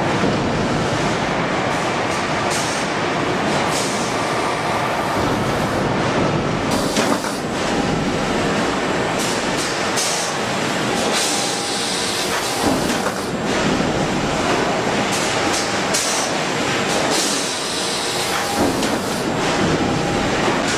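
Car-factory machinery running: a steady mechanical din from conveyors and production machines, with frequent metallic clanks and knocks.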